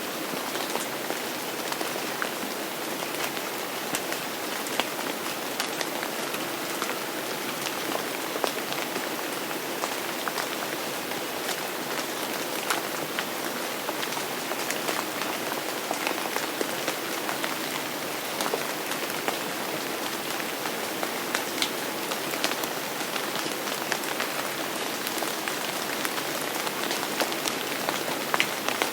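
Steady rain falling on a surface, with many individual drops ticking sharply through the constant hiss.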